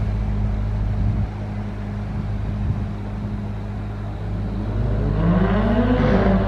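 A steady low engine drone, then about five seconds in an engine revs up, its pitch climbing and holding high.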